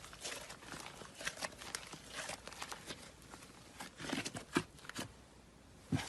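Slime being pressed and worked by hand, making faint irregular crackles and small sticky pops, with a few louder pops about four seconds in.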